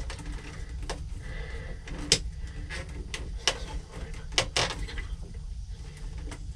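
Scattered light clicks and knocks, about seven of them, from hands working on the power steering line fittings and hoses of a boat engine while it is being taken apart, over a low steady background rumble.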